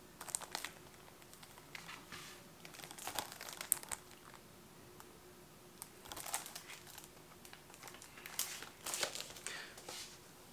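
Plastic shrink-wrap on a sealed Blu-ray case crinkling as the case is handled and turned over, in short scattered rustles, with a faint steady hum underneath.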